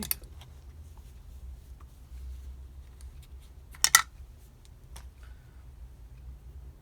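Small metal carburetor parts being handled and fitted: a few sharp clicks and taps, the loudest a quick double click about four seconds in, with lighter ticks between.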